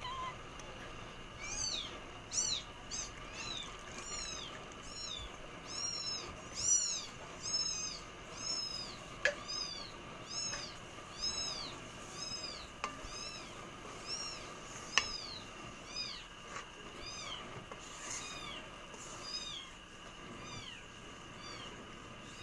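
An animal calling over and over, about two short high-pitched calls a second, each rising then falling in pitch. A few sharp taps come through near the middle.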